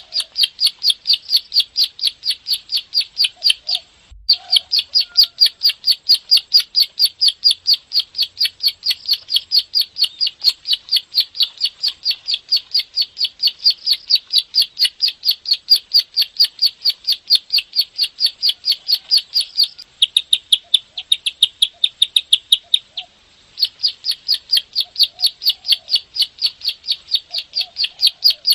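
Plain prinia (ciblek sawah) calling in a long, rapid run of sharp clicking notes, about four or five a second, the fast continuous 'ngebren' delivery. The run breaks briefly about four seconds in and again near the end, going softer for a few seconds before the second break.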